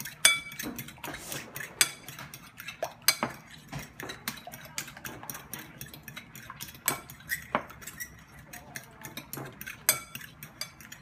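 A metal fork beating raw eggs in a porcelain bowl, its tines clinking against the bowl in a quick, irregular run of clicks, several a second.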